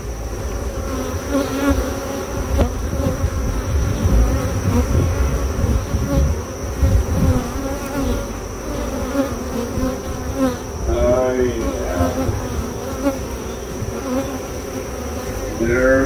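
A cloud of honeybees buzzing close around the microphone, the hum bending up and down in pitch as single bees fly past, over a low rumble. The colony is agitated and defensive after its hive was opened.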